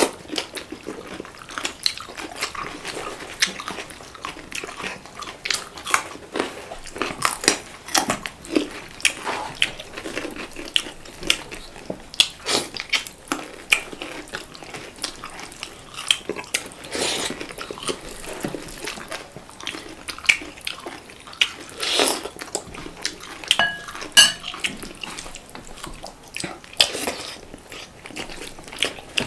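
Close-up mukbang eating sounds: wet lip smacks, chewing and biting of chicken curry, an irregular string of sharp little clicks and smacks.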